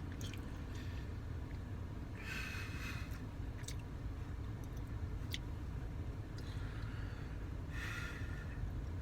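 A person chewing a mouthful of soft ice cream Blizzard: faint mouth and chewing sounds, with two short breathy patches about two seconds in and near the end, and a few light clicks, over a steady low hum.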